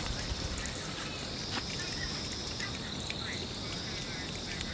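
Insects droning steadily outdoors in one continuous high-pitched buzz, with a few faint short chirps and ticks over it.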